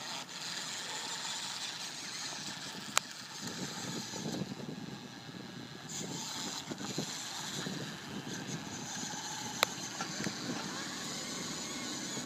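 Radio-controlled car running: a steady rough noise with two sharp clicks, one about three seconds in and one near ten seconds.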